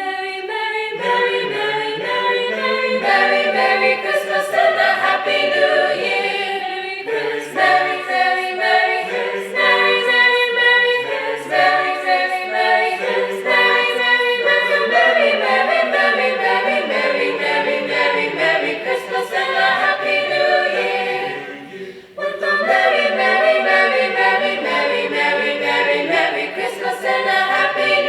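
A choir singing a cappella in several parts, with a brief pause about 22 seconds in before the singing resumes.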